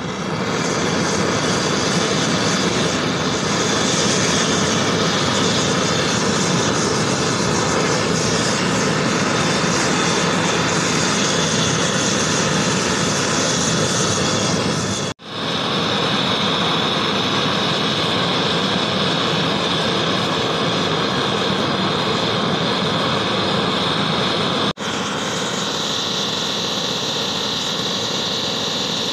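Gas blowtorch flame burning with a steady, loud rushing hiss as it heats a steel air-gun barrel. The sound breaks off briefly about 15 seconds in and again near 25 seconds in.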